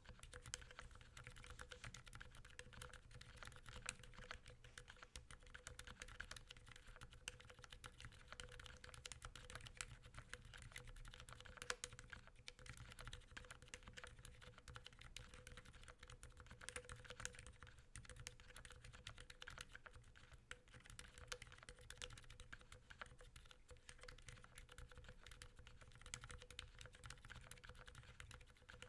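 Continuous typing on a foam-dampened KBD67 MKII keyboard with lubed Cherry MX Silent Black linear switches and lubed Durock stabilizers: a quick, steady run of faint, muted keystrokes with no click. A faint steady hum sits underneath.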